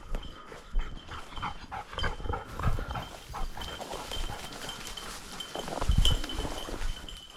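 A bird dog's collar bell ringing steadily as the dog works through cover. Footsteps and rustling in brush and leaves come through under it.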